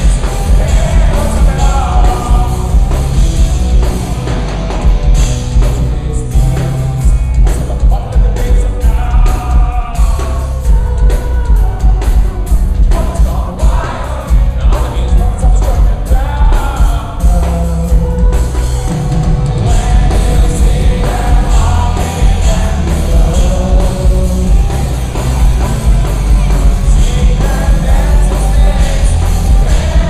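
Live rock band playing loud: a male lead singer over electric guitar, drums and keyboard, heard from within the crowd with a boomy low end.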